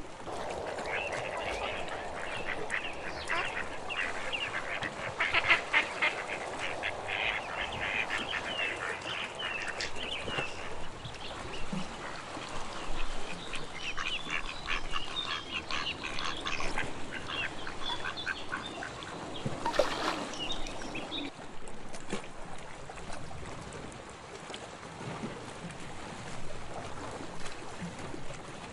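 A flock of ducks quacking in rapid, overlapping runs, in two long bouts that die away near the end, over a steady wash of sea water.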